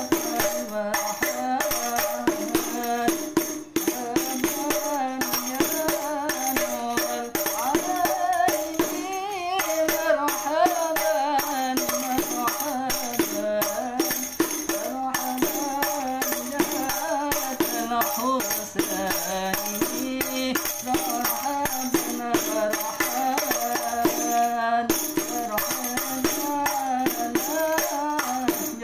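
Rebana frame drum struck by hand in a fast, steady repeating pattern: the lanangan part of a hadrah rhythm. A singing voice carries a sholawat-style melody over the drumming.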